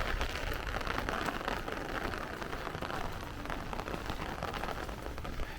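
Rain falling steadily on the street and sidewalk, a dense even hiss of drops.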